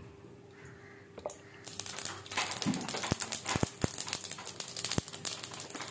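Sesame oil in a steel kadai starts to sizzle and splutter about two seconds in, with a dense run of sharp crackling pops as the hot oil fries.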